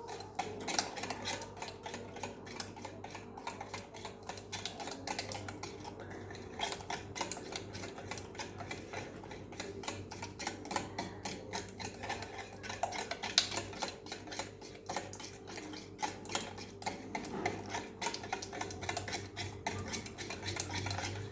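Cake batter of eggs, sugar and oil being beaten in a mixing bowl, the whisk clicking and scraping quickly and irregularly against the bowl, over a steady low hum.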